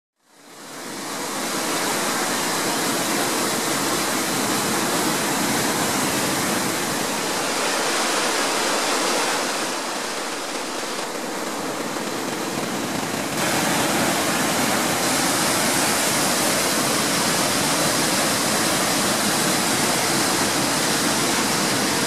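Steady rush of a tall waterfall and its white-water river rapids, fading in over the first second or two. The level dips a little about ten seconds in and comes back up a few seconds later.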